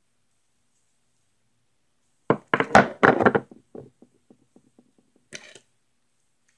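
A quick cluster of loud knocks and thumps about two seconds in, followed by a row of faint ticks and one short rustling burst.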